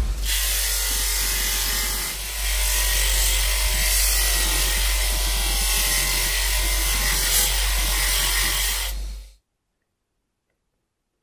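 A small power tool running steadily with a loud, hissing grind over a low motor hum. It dips briefly about two seconds in and cuts off abruptly a couple of seconds before the end.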